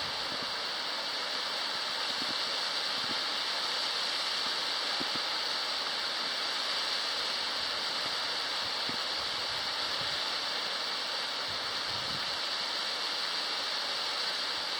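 Steady rushing of a waterfall and its stream in the canyon below, an even hiss that does not change.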